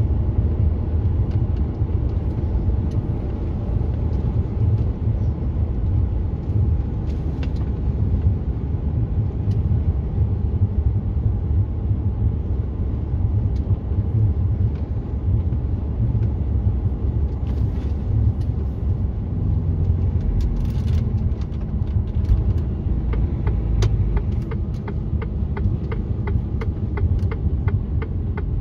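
Steady low rumble of a truck's engine and tyres heard from inside the cab while driving. A fast, regular ticking starts near the end.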